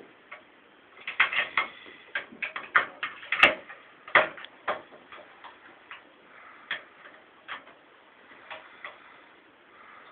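Irregular short clicks and taps, several in quick clusters, with one sharper, louder click about three and a half seconds in.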